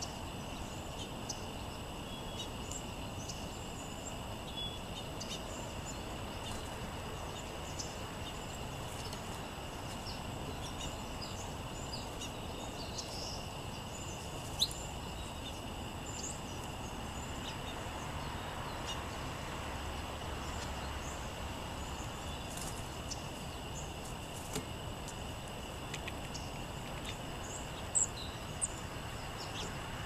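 Small songbirds giving short chirps and call notes over a steady outdoor background hiss, with a few sharp taps, the loudest about halfway through and near the end.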